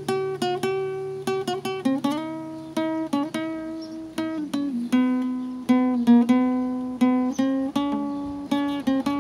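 Solo acoustic guitar playing a picked melody, its notes plucked one after another, several a second, each ringing and fading.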